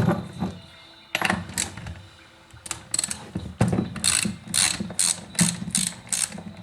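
Ratchet wrench clicking in repeated back-and-forth strokes, about two or three a second in the second half, as fasteners are undone while a chainsaw is dismantled.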